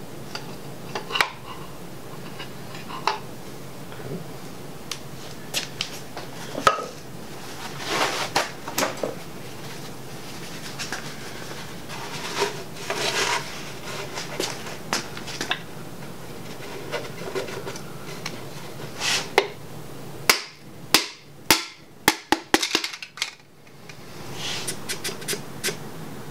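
A piston in a ring compressor being worked into a cylinder of a 5.3L LS engine block, heard as scattered knocks, scrapes and metal-on-metal rubbing. About twenty seconds in comes a quick run of sharp clicks.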